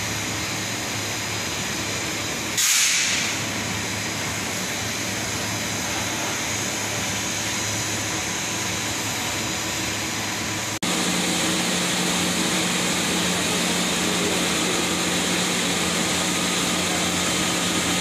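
Steady industrial machinery noise in a lead-smelting cupola furnace plant: a continuous rush with a low hum. A short hiss comes about three seconds in. Just before eleven seconds the noise changes abruptly to a different steady machine hum.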